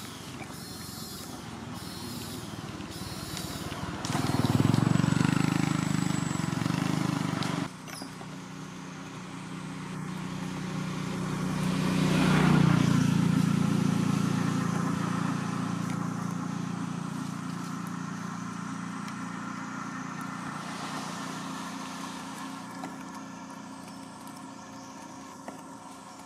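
Motor vehicle engines. A loud low engine hum runs for a few seconds and cuts off sharply. Then a vehicle passes, swelling to loudest about halfway through and slowly fading, leaving a low steady engine hum.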